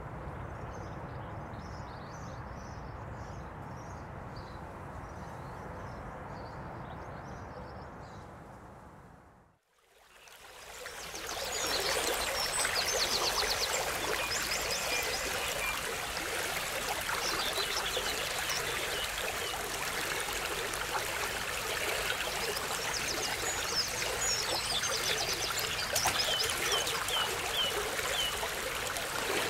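A quiet low rumble with faint high chirps fades out just before ten seconds in. Then river water flows in a steady, even rush, with birds chirping over it in short repeated calls.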